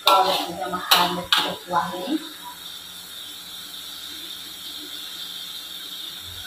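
A metal ladle stirs and scrapes a tomato chilli sauce in a metal wok, with a few sharp knocks in the first two seconds. Then the sauce cooks over the gas burner with a steady hiss.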